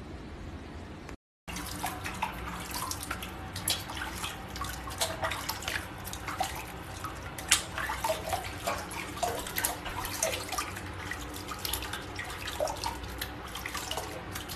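Water splashing and dripping in a small plastic tub as a wet cat is washed by hand. It starts about a second and a half in, with many small irregular splashes.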